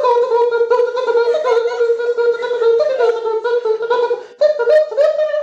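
A man vocally imitating trance music into a microphone: a held hummed tone pulsed in a steady beat, stepping up in pitch about four seconds in.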